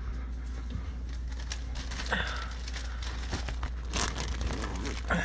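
Soft rustling and a few crinkles close to the phone's microphone as it is handled while its holder crouches down, over a steady low hum.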